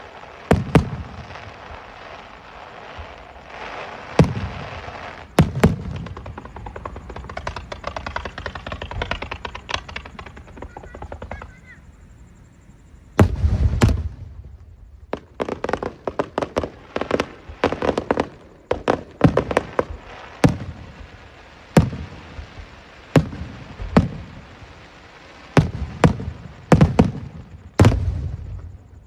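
Fireworks bursting: a series of sharp bangs, some with a crackling trail, coming thickest in a rapid run about halfway through.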